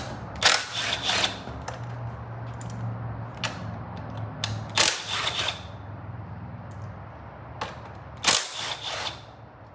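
Hand socket ratchet clicking in three short bursts while the 12 mm bolts holding a motorcycle's rear fender are loosened.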